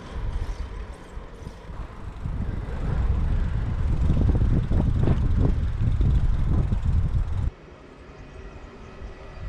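Wind buffeting the action camera's microphone, a dense low rumble that cuts off suddenly about seven and a half seconds in, leaving a much quieter outdoor ambience.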